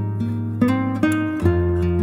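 Background music: a gentle melody of notes starting one after another, about every half second, over a held low bass note.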